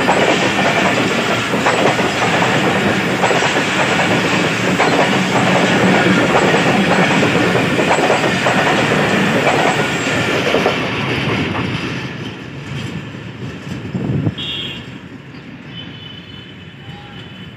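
Passenger coaches of a Pakistan Railways express rolling past close by, a steady clatter of wheels over rail joints. It fades away over the last several seconds as the end of the train passes and recedes, with a single knock along the way.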